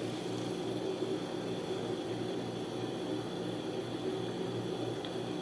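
Steady low hum with an even hiss: room background noise, unchanging throughout.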